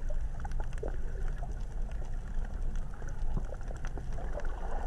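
Underwater sound picked up while snorkelling over a reef: a steady, muffled low rumble of water with scattered faint clicks.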